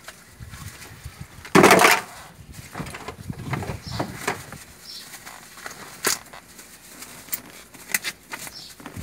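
Plastic wrapping crinkling and rustling as hands tear open wrapped packets, in irregular crackles with one loud burst of crinkling about one and a half seconds in.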